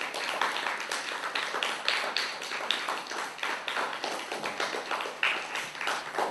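Applause from a small audience, many hands clapping unevenly and continuously.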